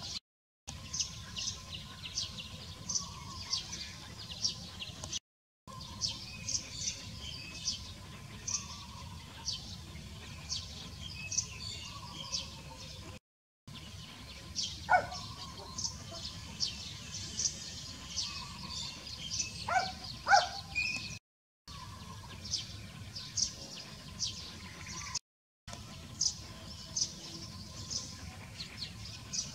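Small birds chirping repeatedly over a steady low outdoor background hum, the sound cutting out briefly several times. A few louder short calls stand out around the middle.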